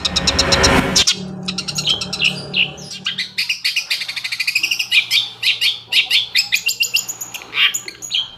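Long-tailed shrike (cendet) calling: a harsh rasping call in the first second, then a fast run of sharp high chirps and trills. It is played as a lure to set other shrikes calling.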